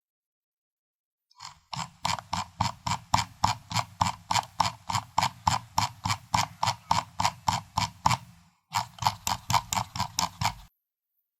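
Computer mouse scroll wheel being rolled, its notches clicking evenly at about four to five clicks a second. The clicking starts a little over a second in, breaks off briefly near the eight-second mark, runs on for about two more seconds, then stops.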